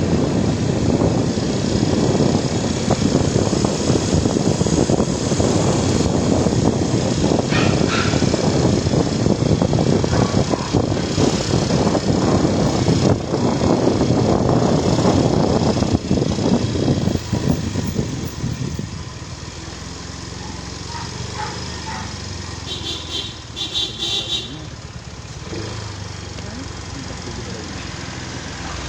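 Steady engine and road noise of a moving motor vehicle, loud for most of the stretch, then easing to a quieter rumble about eighteen seconds in. A short run of rapid high-pitched pulsing sounds comes near the end.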